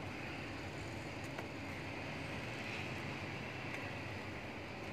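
A steady low mechanical hum with an even hiss over it, with no clear separate strokes.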